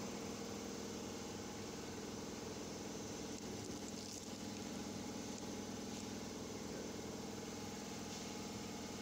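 A steady mechanical hum at a constant pitch, like a running engine or motor.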